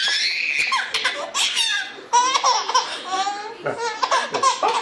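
A baby laughing hard, in several bursts of laughter one after another.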